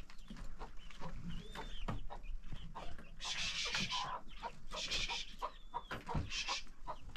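Chickens clucking and calling, with a few short arching calls and three brief noisy bursts in the middle.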